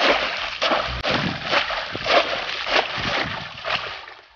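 Wire crab scoop swept hard through shallow water, a run of splashes about twice a second that dies away near the end.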